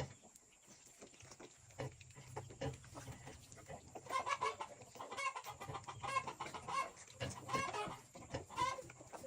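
Farm animal calls: a quick run of short, repeated calls starting about four seconds in, with fainter scattered calls before.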